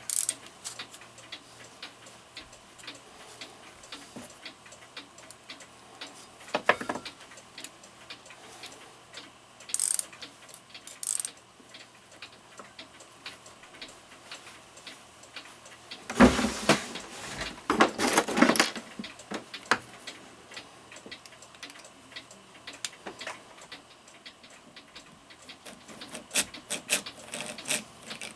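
Small metallic clicks and clatter of clock movement parts and tools being handled, with a denser, louder spell of metal rattling around the middle.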